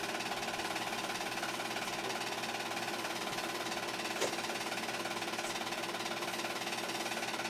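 8mm film projector running: a steady, rapid mechanical whir from its motor and shutter, with one sharp click a little past halfway.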